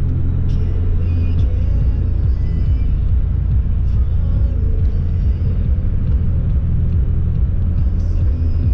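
A car driving at road speed, heard from inside the cabin: a steady low rumble of engine and road noise.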